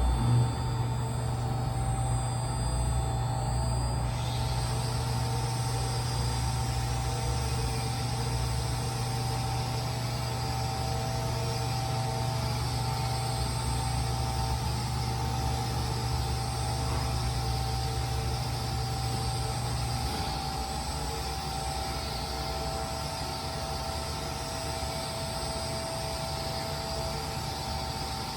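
Electric drive of a welding positioner running with a steady low hum and whine. The hum stops about twenty seconds in, and a fainter steady machine whine carries on.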